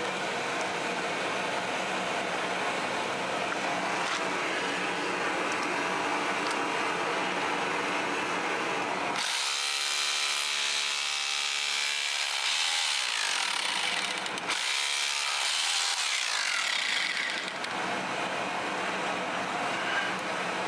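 A power tool running steadily. About nine seconds in its sound turns sharply brighter and hissier, then breaks off for a moment and starts again with a sweeping change in tone.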